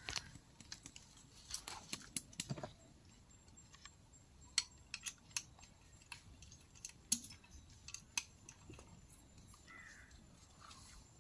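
Scattered small clicks and metallic handling noises as a dart is pushed into a dart rifle and the rifle's breech is worked, with a few sharper clicks in the middle.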